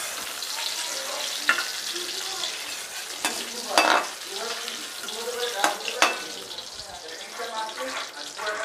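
Prawns sizzling in hot mustard oil in an aluminium kadai as a slotted metal spatula scoops them out. Several sharp metal clacks and scrapes of the spatula, the loudest about four seconds in.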